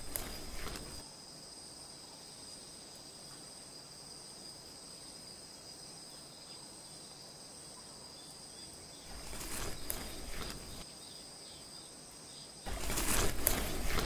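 Dubbed-on prehistoric-jungle ambience: a quiet, steady bed with a thin high insect-like buzz. A short burst of clicks and rustle comes about nine seconds in, and a louder sound starts near the end.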